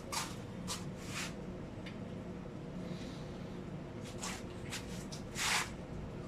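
A run of short scrapes and rustles from parts being handled, about seven in all and the loudest near the end, over a steady low hum.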